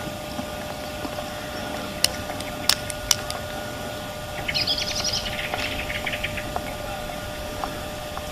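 Wind rumbling on the microphone in open country. About two to three seconds in come four sharp distant cracks in quick succession, then a small bird's fast chattering song for about two seconds.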